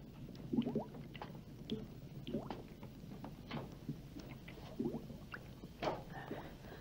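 A pot of thick varnish bubbling slowly, with irregular soft plops, each a short rising blip, one or two a second.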